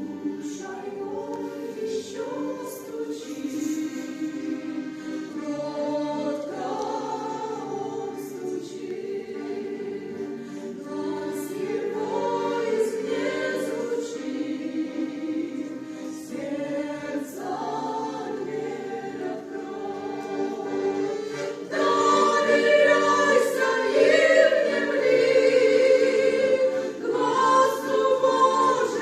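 Choir singing a Christian hymn, with sustained sung notes; it grows louder about two-thirds of the way through.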